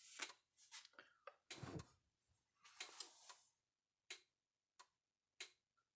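Stafix X18i electric fence energizer clicking as it fires its pulses, just switched on. From about four seconds in it gives a sharp click roughly every two-thirds of a second, after a few seconds of softer, irregular clicks.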